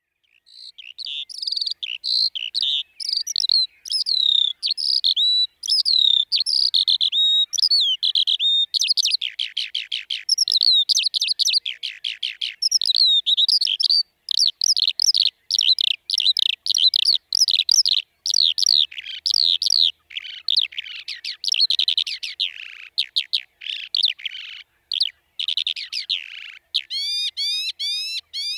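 Eurasian skylark singing: a long, almost unbroken stream of rapid chirps, trills and whistled notes, with a quick run of repeated rising notes near the end.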